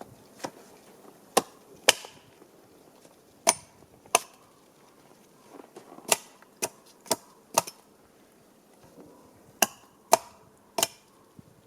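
A tool striking wood: about a dozen sharp knocks at uneven intervals, some in quick pairs.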